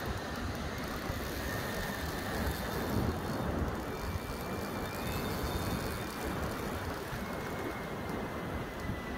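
Wind rumbling on the microphone over surf washing up the beach: a steady, uneven noise with no distinct events.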